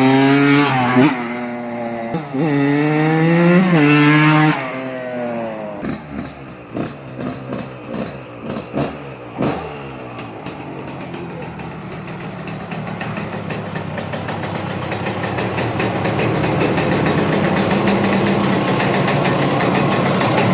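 Freshly rebuilt 1998 Yamaha YZ125's 125cc two-stroke single-cylinder engine revving up and down in a few blips, then popping unevenly off throttle for several seconds, then running more steadily and slowly getting louder.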